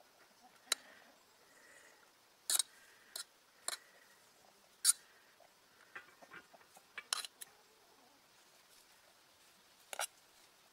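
Scattered sharp clicks and light clinks of a metal fork and tongs knocking against a nonstick cookpot and plate while spaghetti is lifted out and served.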